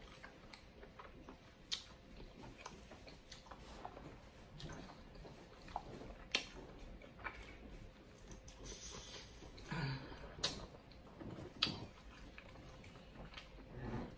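Close-miked chewing and wet mouth sounds of a person eating sauce-covered king crab meat, with several sharp smacking clicks scattered through.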